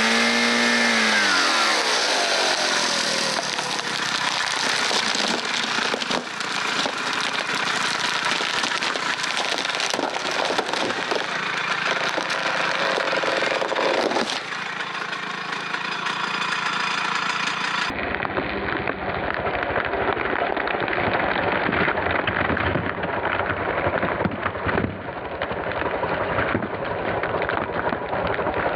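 A Stihl MS362 chainsaw's engine drops in pitch as it comes off the throttle, followed by a long stretch of dense crackling, rushing noise.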